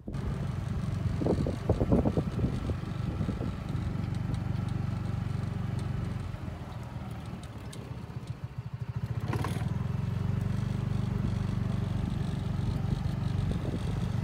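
Golf cart driving along a paved cart path, its motor running with a steady low drone and body rattles. It eases off around six seconds in and picks up again, with a sharp clack a little after nine seconds.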